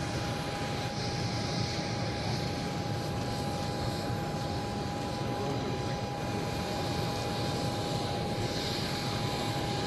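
Aircraft jet engine running steadily: a constant whine over a low rumble and hiss.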